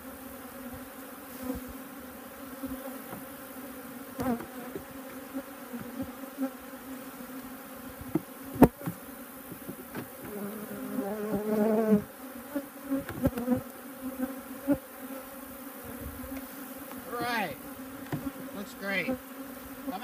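Honeybees buzzing around opened hives: a steady hum that swells louder for a second or two around eleven seconds in, from a colony stirred up by the boxes being opened and bees shaken out. A few sharp knocks, the loudest about eight and a half seconds in.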